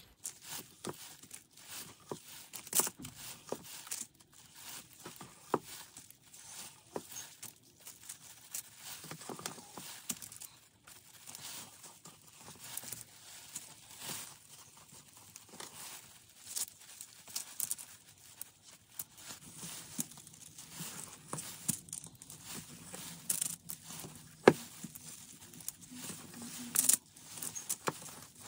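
Press-and-seal food wrap being handled as whipped body scrub is laid onto it: irregular crinkling and crackling, with scattered sharp clicks.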